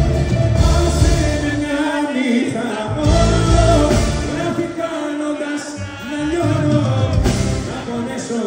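Live Greek bouzoukia band music with singing, played loud over heavy bass.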